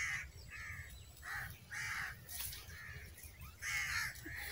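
Birds calling: a run of about eight short, rough calls, a fraction of a second each.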